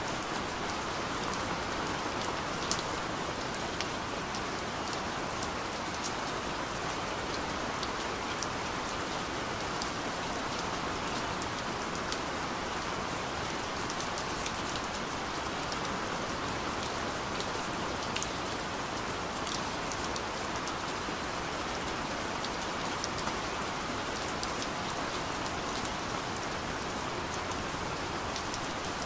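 Steady rain: an even hiss of falling rain with scattered sharp taps of single drops.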